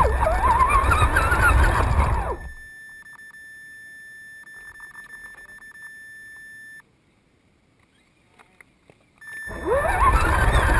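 Electric RC crawler running, its motor whine wavering up and down in pitch over a heavy rumble from the chassis-mounted camera. The truck goes quiet about two seconds in, leaving a steady high electronic whine with a few faint clicks. After a short near-silent gap, it starts driving again near the end.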